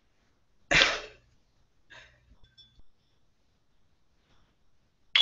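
A short, sharp, breathy burst from a person about a second in, like a huff or sneeze, followed by a few faint small clicks.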